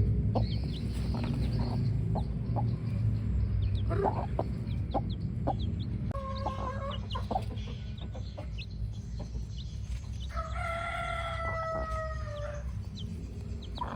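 Chickens clucking, with rapid high chick peeps throughout, and a rooster crowing once about ten seconds in, a call of roughly two seconds that falls slightly at the end. A steady low rumble runs underneath.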